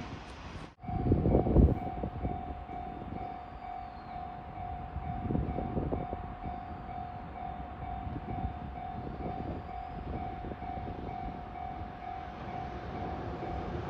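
Railway level crossing warning bell ringing steadily in a fast repeating tone, warning of an approaching train. It cuts out briefly under a second in, and a low rumble swells just after.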